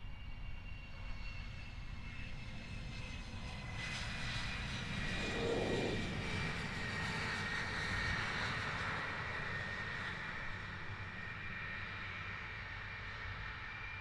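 MiG-31's twin turbofan engines running at low power on landing rollout: a steady whine of several high tones over a rumble, growing louder about four seconds in and easing off again over the last few seconds.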